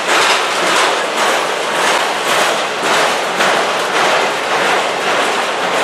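Freight train of flatcars rolling past close by: a loud, steady rush of steel wheels on rail that swells and fades in an even rhythm, under a second apart, as the wheelsets go by.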